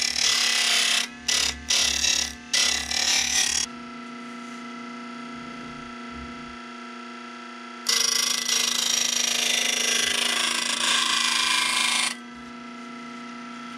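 Small benchtop belt sander running with a steady motor hum, and loud rasping whenever the edge of a template is pressed against the belt: several short passes in the first few seconds, then one long pass of about four seconds later on.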